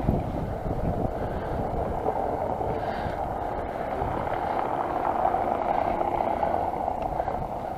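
Steady rush of wind on the microphone, with the tyres of a mountain bike rolling on a paved path.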